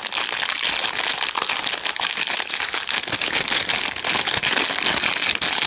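Thin plastic toy packaging bag crinkling continuously as hands work it open, a dense crackle of many small clicks.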